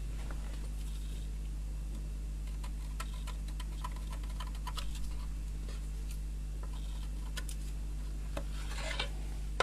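Scattered light clicks and taps of a pencil marking a freezer-handle part and of the part being handled on a wooden workbench, over a steady low hum.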